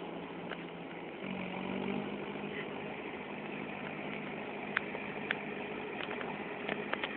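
Tractor engine running steadily as it works a flooded rice paddy, its hum shifting slightly about a second in. A few short sharp clicks sound near the end.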